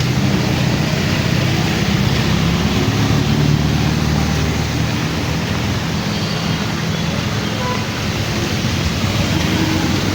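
Heavy rain falling steadily on a city street, under the low, steady running of passing vehicle engines.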